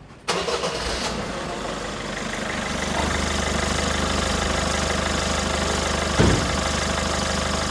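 Diesel engine starting up about a quarter second in and settling into a steady idle, running on concentrated fuel-system cleaning fluid fed from a cleaning machine in place of the fuel tank. A single short knock about six seconds in.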